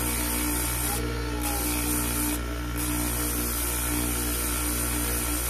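Electric polishing motor running steadily with an abrasive rubber sleeve on its spindle, a vintage Seiko watch case back held against it: a constant motor hum under a hissing grind of metal on the abrasive, which drops out briefly twice.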